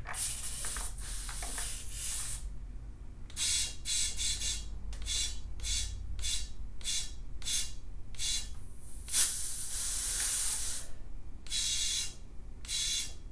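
Compressed air hissing from an air chuck pressed onto a pump-up garden sprayer, pressurising its tank. There is one long burst, then a run of short bursts about two a second, then longer bursts near the end.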